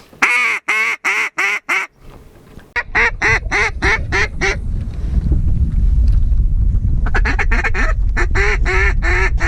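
Mallard duck call blown in three runs of short, evenly spaced quacks, the hen-mallard calling used to pull in passing ducks. A low wind rumble on the microphone sets in about three seconds in.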